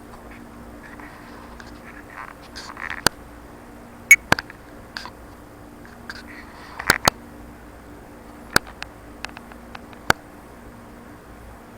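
A 12-volt compressor car fridge running with a steady low hum, broken by scattered sharp clicks and knocks, the loudest about four seconds in and another pair about seven seconds in.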